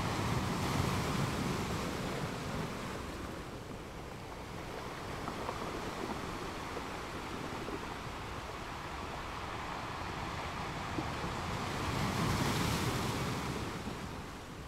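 Ocean waves breaking on a rocky beach: a steady wash of surf that swells about a second in and again, louder, near the end.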